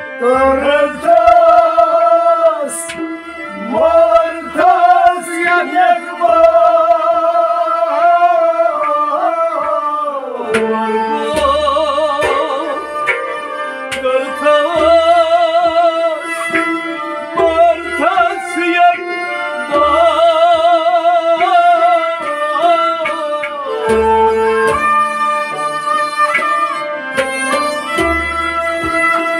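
A male voice singing a Kashmiri Sufi kalam with a wavering, ornamented melody, accompanied by a bowed string instrument and low hand-drum strokes.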